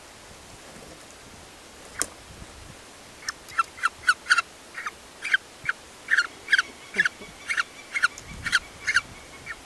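Peregrine falcon calling: a run of short, repeated calls, about two or three a second, starting about three seconds in. A single sharp click comes about two seconds in.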